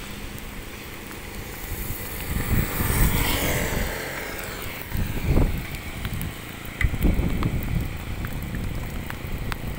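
Traffic passing on a rain-soaked road, with tyres hissing on the wet asphalt and one vehicle sweeping past about three seconds in. Wind gusts thump on the microphone several times.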